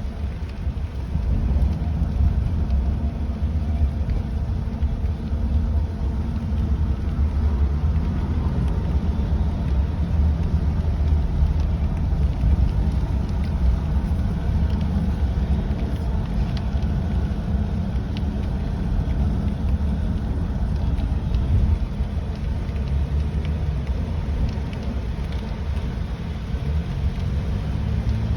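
A car driving in rain: a steady low rumble of road and engine noise, with faint scattered ticks of raindrops on top.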